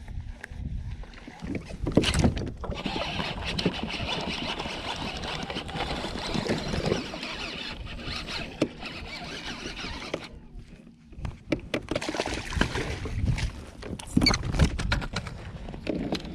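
Water splashing and knocks against a kayak as a bass is fought and landed. A steady hiss runs for several seconds in the middle, and a run of sharp knocks and splashes comes near the end.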